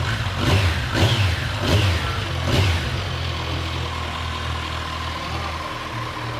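Kawasaki Z1100 SE's inline-four engine revved four times in quick succession, each blip rising and falling in pitch, then settling back to a steady idle.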